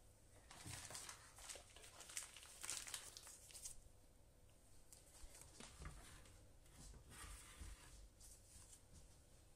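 Faint crinkling and rustling of a plastic piping bag filled with choux pastry as it is picked up and handled, busiest in the first four seconds and lighter later on.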